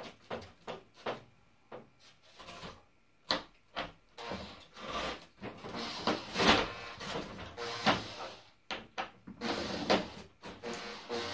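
A cordless drill driving screws into styrofoam panels in short runs, about four to seven seconds in and again near ten seconds. Before that come light knocks and rubs as the foam panels and screws are handled and lined up.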